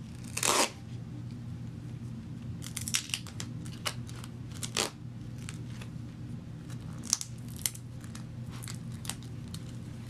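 Duct tape ripped off the roll in one sharp tear about half a second in, followed by short scattered crackles and rustles as the tape is handled and pressed onto a slipper sole.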